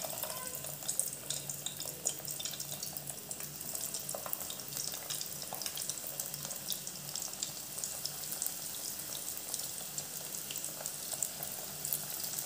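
A breaded egg finger deep-frying in hot oil in a kadai: a steady sizzle dotted with small crackling pops.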